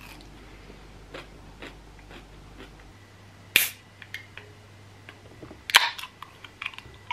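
Aluminium Red Bull drink can being opened: a sharp click about three and a half seconds in, then the louder crack of the ring-pull about six seconds in with a brief hiss, among a few small taps on the can.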